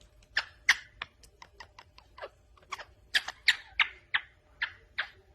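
A rapid, uneven run of short sharp clicks or taps, about four or five a second, growing louder in the second half.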